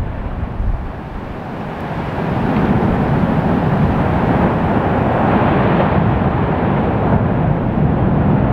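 Lava fountain at the Fagradalsfjall vent erupting: a deep, rushing roar of gas and spattering lava. It swells about two seconds in as the fountain surges up at the start of one of the volcano's geyser-like eruption pulses, and then holds steady and loud.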